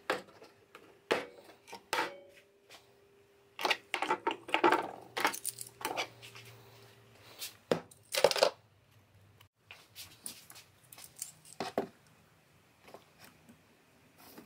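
Scattered clicks, knocks and clatter of hard tools and parts being handled on a workbench, in irregular clusters with short pauses between.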